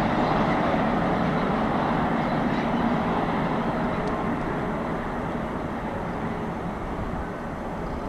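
Heavy freight train running away on the climb, the rumble of the wagons' wheels on the rails together with the Taurus electric locomotive pushing at its rear, fading steadily as it recedes.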